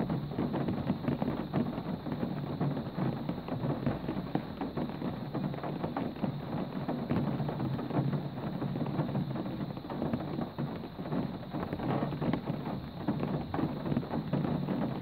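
Steady rain: a dense patter of drops over a low rushing noise.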